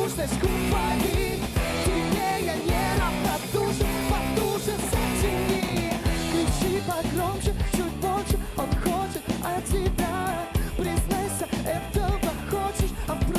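Live rock band playing a song: electric guitar, bass, keyboards and drum kit, with sung vocals.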